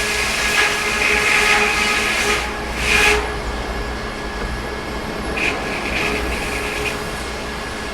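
Sawmill running with a steady low machine hum. Bursts of high, hissing whine come through the first three seconds and again briefly around the middle.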